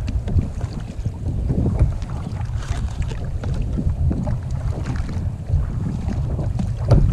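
Wind buffeting the camera microphone in a steady low rumble, over water splashing as a kayak paddle dips and pulls.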